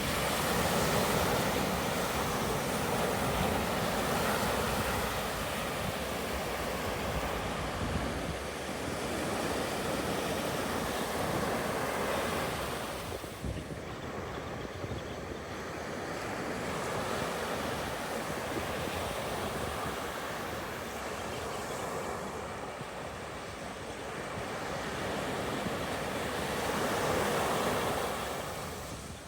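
Ocean surf breaking and washing up a sand beach, a steady rush that swells and eases: loud at first, falling away about halfway through, then building again near the end.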